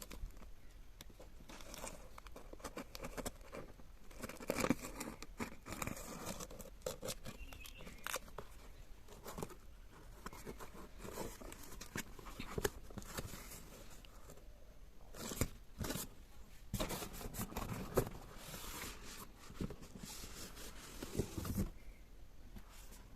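Packaging being handled and opened: irregular rustling, tearing and clicking of cardboard and plastic.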